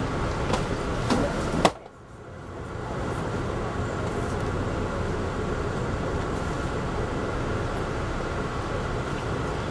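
Steady rumble of a passenger train car rolling along the track, heard from inside the car. A few light clicks and a sharp knock come just under two seconds in, after which the sound drops away suddenly and swells back within about a second.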